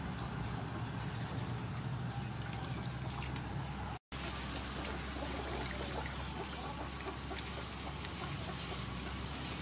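Liquid sloshing and trickling as grated coconut is squeezed by hand in water to make coconut milk, then coconut milk and pulp are poured into a wire mesh strainer and dribble through into a pot. The sound cuts out briefly about four seconds in.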